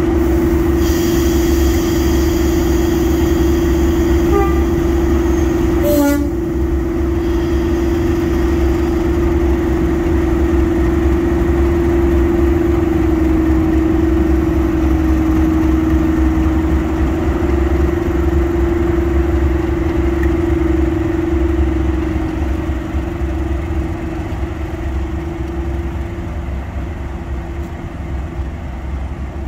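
A pair of Class 37 diesel locomotives passing at low speed, their engines running with a steady deep drone and rumble. There is a short sharp knock about six seconds in, and the sound fades near the end as the locomotives draw away.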